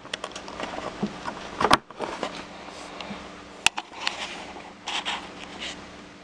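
A USB mini cable being handled and plugged into an Arduino Nano's socket: rustling and scraping with clear clicks a little under two seconds in and again just under four seconds in.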